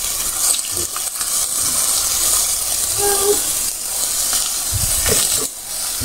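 Shredded cabbage and onion sizzling steadily in an oiled frying pan over high heat, the fry nearly done.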